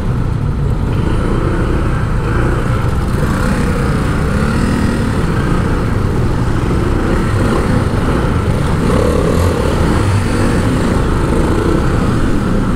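Steady motor vehicle noise from travelling along a city street, a continuous rumble with no break.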